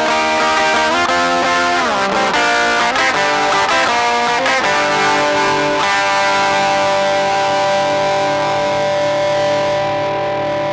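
Electric guitar with distortion, played through an effects unit: a run of single notes with a slide down about two seconds in, then a chord struck about five seconds in and left ringing.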